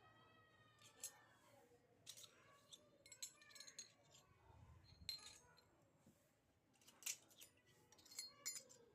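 Light clicks, taps and clinks of small plastic miniature kitchen toy pieces being handled and set down, a dozen or so scattered and irregular.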